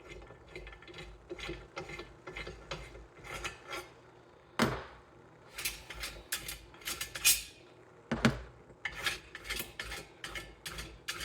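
Hand tools working on a small engine's cylinder head: irregular metallic clicks and clinks as the loose head bolts are backed out, with a sharper knock twice.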